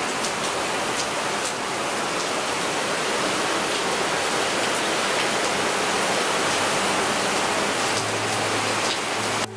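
Heavy rain falling steadily, a dense hiss with occasional sharper drop hits.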